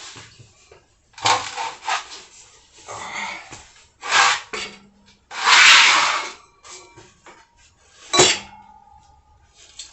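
Metal clanking and scraping as a motorcycle's rear wheel is worked free and rolled out of the swingarm, in several separate bursts. A sharp metal clank about eight seconds in is followed by a ringing tone that lasts over a second.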